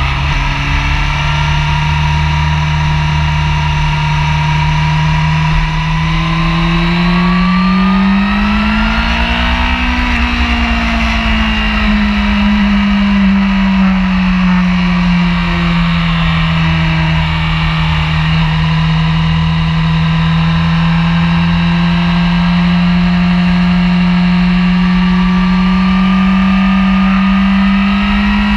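Honda sport bike engine running at track speed. Its pitch climbs about a third of the way in, eases back and holds steady, then climbs again near the end. Heavy wind rumble on the bike-mounted microphone lies underneath.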